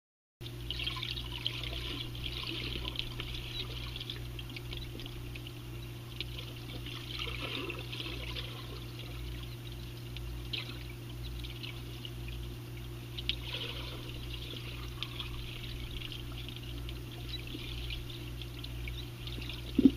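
Underwater sound in a swimming pool, picked up by a submerged microphone: bubbles fizzing and crackling over a steady low hum.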